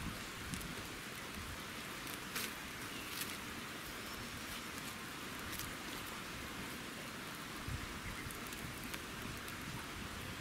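Freshly lit stick campfire crackling steadily, with a few sharper pops scattered through.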